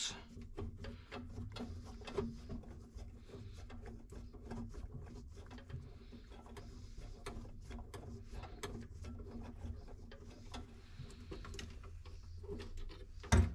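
Faint, irregular clicks and scrapes of a Phillips screwdriver and hands working a screw loose from the metal under a truck's dashboard, over a low steady hum.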